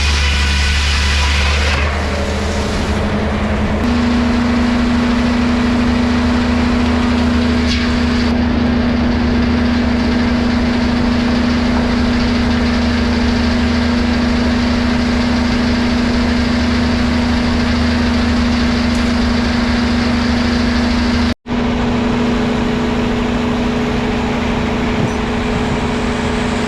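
An engine running steadily at a constant speed, its hum stepping up slightly in pitch about three seconds in and then holding. It cuts out for an instant near the end.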